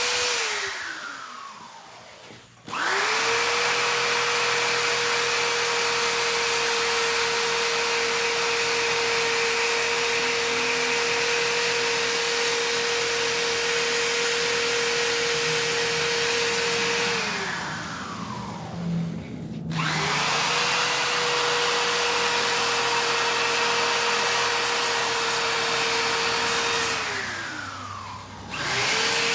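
Small handheld power grinder running at a steady pitch, switched off and coasting down with falling pitch three times: right at the start, a little past the middle, and near the end. Each time it is restarted after a second or two.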